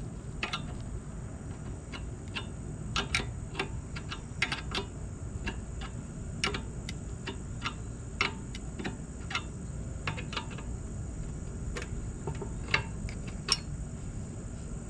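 Sharp metallic clicks and taps at uneven intervals, sometimes several in quick succession, from hand tools working loose the nuts on a motorized bicycle's engine mounts. Under them is a steady low background rumble.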